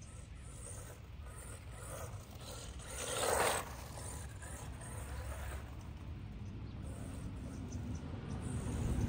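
Arrma Mojave Grom small electric RC truck driving across a grass lawn, its drivetrain gears and motor running with a mechanical whir. About three seconds in there is one brief louder rush.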